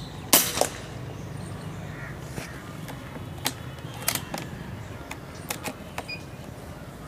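A single shot from a .22 SPA/Artemis P10 PCP air rifle: a sharp crack, a smaller crack about a quarter second later, then a few lighter clicks. The JSB 18.13-grain pellet clocks about 894 fps over the chronograph.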